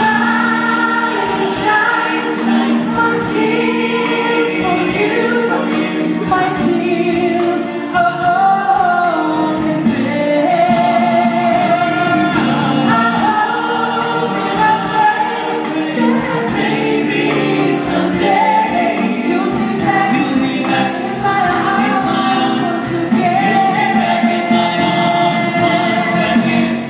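Male voices singing a pop ballad in harmony with a live band, amplified over a concert hall PA and heard from among the audience.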